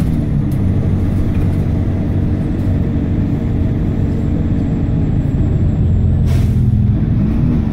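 Optare Tempo single-deck diesel bus heard from inside the saloon while under way: a steady engine and drivetrain drone over road noise. The engine note dips just after the start and rises again near the end, and there is a short hiss of air about six seconds in.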